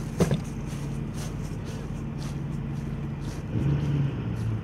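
An engine idling steadily, with a sharp knock just after the start. The engine grows louder for about a second from about three and a half seconds in.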